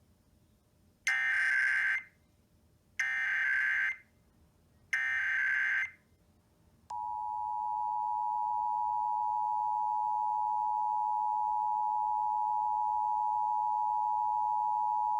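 Emergency Alert System header: three bursts of screechy digital SAME data tones, each about a second long and a second apart, then the steady two-tone attention signal (853 and 960 Hz) starting about seven seconds in and held for about eight seconds. Together they open a statewide EAS test.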